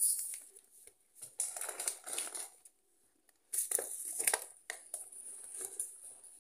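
Rustling and crunching of 1 kg paper bags of granulated sugar being handled and moved on a table, with a few light knocks. It comes in two bouts with a short pause about midway.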